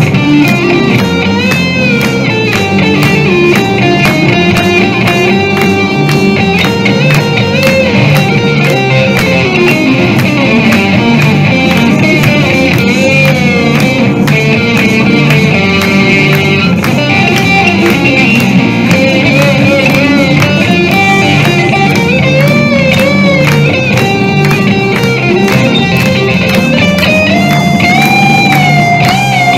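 Electric guitar played live through an amplifier, carrying a lead melody over a rock backing track, with held notes wavering in vibrato near the end.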